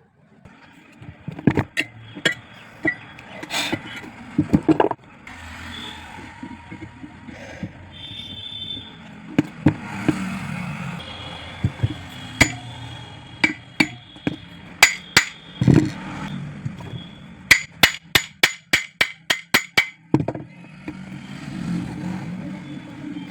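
Tools knocking and scraping on metal during pump repair work: scattered single knocks, then a quick run of about a dozen taps at roughly five a second in the last third.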